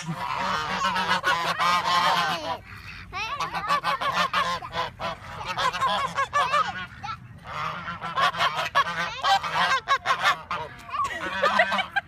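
Several domestic geese honking repeatedly, their calls overlapping, with brief lulls about three and seven seconds in.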